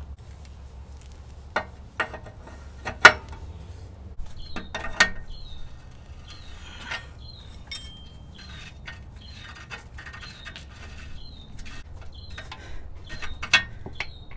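A wrench clicking and clanking as an oxygen sensor is unscrewed from a truck's exhaust pipe, with a few sharp knocks, the loudest about three seconds in.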